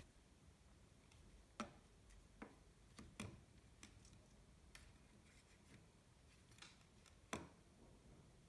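A few sharp, short clicks and taps over near silence, the loudest about one and a half seconds in and again near the end.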